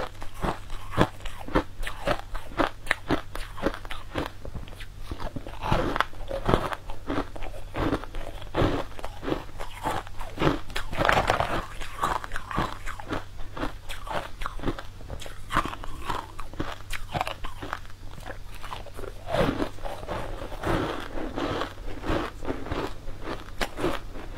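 Close-miked biting and crunching of frost-covered purple frozen cubes, a dense run of crisp, irregular crackles and snaps as they are chewed.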